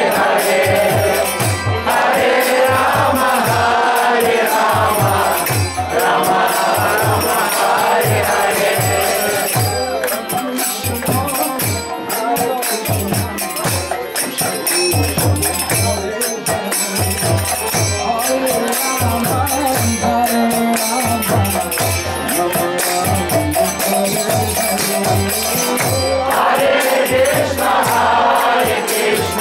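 Congregational kirtan: a crowd of voices singing a devotional mantra together over a steady, fast drum beat, with jingling hand cymbals and clapping. The massed singing is strongest near the start and swells again near the end.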